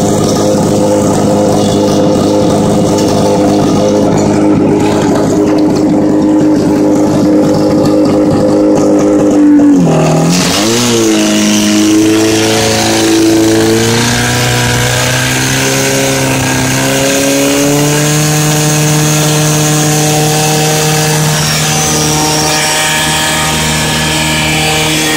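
Portable fire pump's engine running hard at high, steady revs. About ten seconds in its pitch dips sharply and wavers, then climbs back in steps and holds steady as the pump comes under load delivering water to the hoses.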